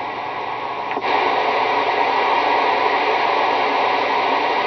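Steady hiss of static from a CB radio receiver with no signal speaking through it. It steps louder about a second in and then holds even.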